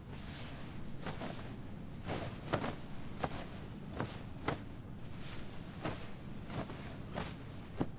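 Bedding rustling as a duvet is shifted and pulled over a person lying in bed: about a dozen short, irregular soft swishes over a low steady hum.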